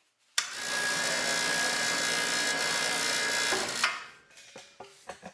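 A small electric motor, like a power tool's, runs steadily for about three and a half seconds, starting abruptly and stopping near the end, followed by a few light clicks.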